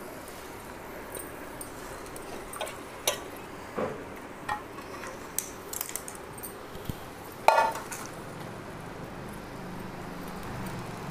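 Steel utensils clinking and knocking against a steel kadai as raw chicken pieces are put into it: scattered light clinks over a faint steady hiss, with one louder ringing metal clank about seven and a half seconds in.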